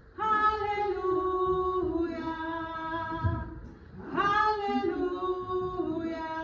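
A single voice singing a slow hymn melody without words, in long held notes, with a new phrase starting about four seconds in.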